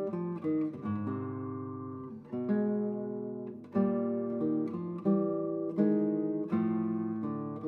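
Background music: acoustic guitar playing chords, each one strummed about once a second and left to ring.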